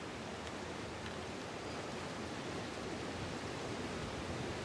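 Steady, even background hiss with no distinct sound standing out.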